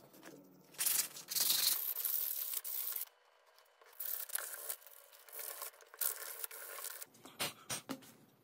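Sandpaper rubbed by hand over wood, rasping strokes: a long loud stretch in the first few seconds, then a run of shorter strokes, ending in a few quick short rubs.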